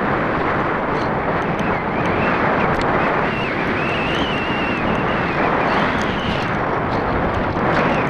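Steady rush of wind buffeting the microphone of an action camera mounted on an RC glider in flight, with a faint, wavering high whine above it.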